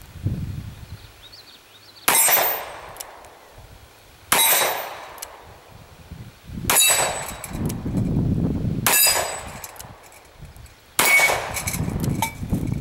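Five shots from a Smith & Wesson Model 27-2 .357 Magnum revolver, about two seconds apart, each followed by hanging steel plate targets clanging and ringing on.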